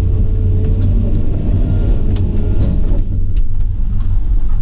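Excavator engine and hydraulics working as the machine repositions and digs into topsoil: a loud, steady low rumble. A faint whine fades out about a second in, and there are a few light clicks and knocks.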